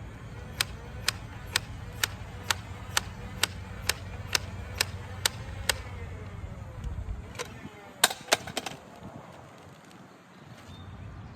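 Purple toy blaster firing shot after shot in an even rhythm, about two sharp clicks a second, a dozen in all; a quick cluster of a few more shots follows about eight seconds in.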